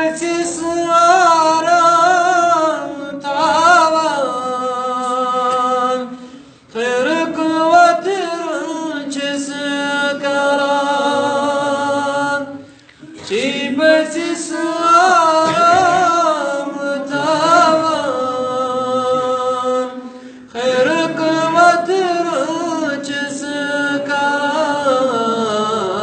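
A man singing an unaccompanied Kashmiri devotional song in praise of the Prophet, in long ornamented phrases with short pauses for breath about every six to seven seconds.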